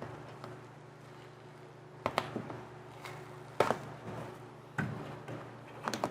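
A few sharp knocks and taps, about five in all and irregularly spaced, from hands working a cloth headliner and clamps into a car's roof, over a steady low hum.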